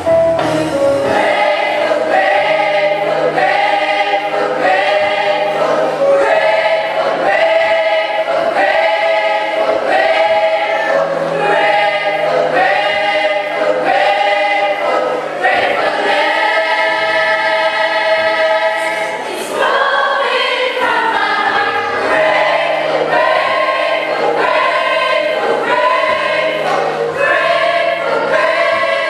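A choir singing a gospel song, with a steady low accompaniment underneath.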